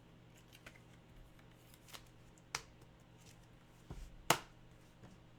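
Football trading cards being handled and flipped: a few scattered sharp clicks and flicks of card stock, the loudest about four seconds in, just after a dull knock, over a faint steady hum.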